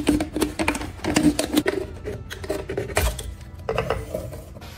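Thin plastic bottle crackling and clicking as a utility knife cuts around it to take the bottom off, with one sharp loud snap about three seconds in.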